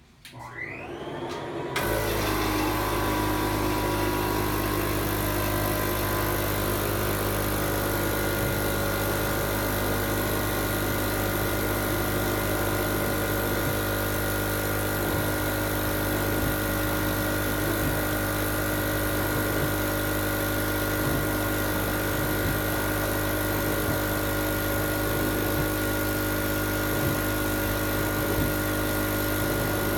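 Cough assist machine (mechanical insufflator-exsufflator) switched on: a brief rising whine, then its blower comes on abruptly about two seconds in and runs steadily, a motor sound with several steady whining tones.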